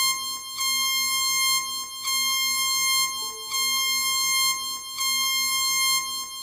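Electronic emergency alert tone: a steady, buzzy tone that pulses in level about every one and a half seconds.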